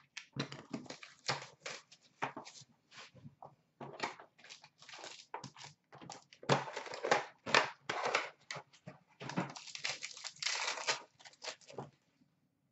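Plastic wrap and a foil trading-card pack being torn open and crumpled by hand: an irregular run of short crinkling rustles, busiest in the middle and latter part.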